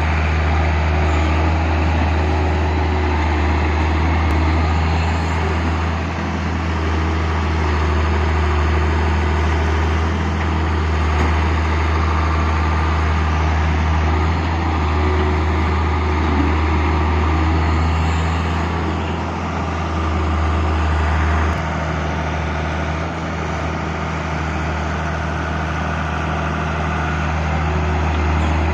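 Diesel engines of a Hitachi EX100 wheeled excavator and a UD Nissan dump truck running together while the excavator works: a steady deep engine hum, its level easing and picking up a few times as the excavator loads.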